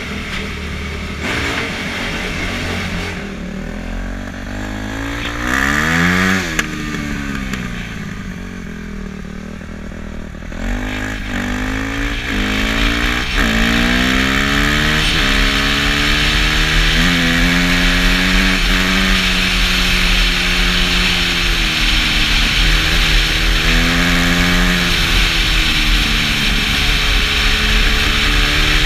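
Dirt bike engine running at low revs, blipped once, then pulling away hard from about ten seconds in, its pitch climbing and dropping back through several gear changes. Wind rushes over the microphone as speed builds.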